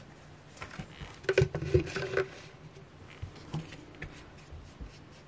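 Small clicks and taps of craft supplies being handled on a work table, clustered about a second to two seconds in, with a few lighter ticks after.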